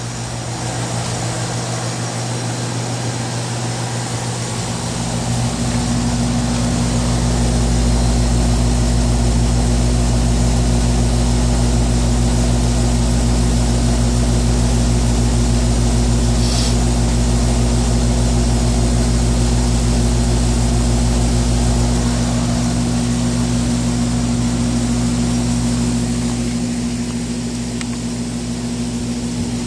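Outdoor air-conditioning condenser unit running, with a steady compressor hum and fan noise. A deep low rumble swells in about five seconds in and eases off after about twenty-two seconds.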